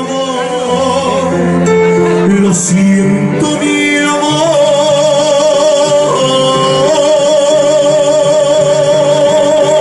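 A male singer, amplified through a handheld microphone, sings a slow song over a Korg electronic keyboard. From about four and a half seconds in he holds one long note with a wide vibrato.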